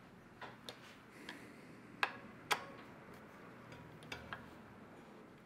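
Light, irregular metallic clicks from a bicycle's front disc brake caliper being centred with a hex key on its mounting bolts: about seven ticks, the two loudest near the middle.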